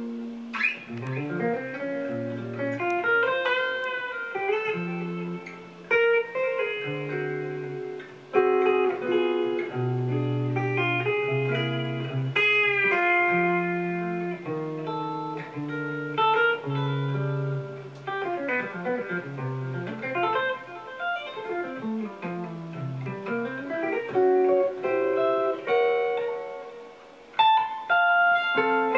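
Fender Telecaster electric guitar played through a digital amp modeller: a continuous improvised lead line of quick single notes, bends and slides with occasional chords. The playing briefly thins out a little before the end, then resumes with a sharp attack.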